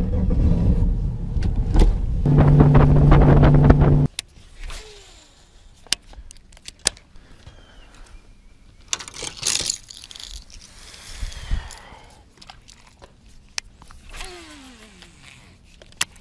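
Bass boat's outboard motor running at speed with wind rush, a steady low hum rising out of it, cut off suddenly about four seconds in. After that, only light clicks and rustling of rod, reel and clothing.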